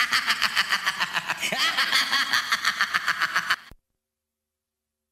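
Sinister evil laugh: a rapid, even cackle of many short laugh pulses lasting about three and a half seconds, then cutting off abruptly.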